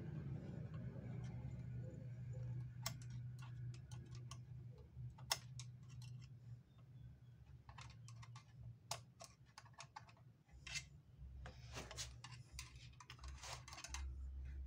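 Faint, irregular small metallic clicks and taps from a screwdriver and loose parts on an Olimpia multi-stitch sewing machine's needle-bar mechanism, with a quicker run of clicks near the end.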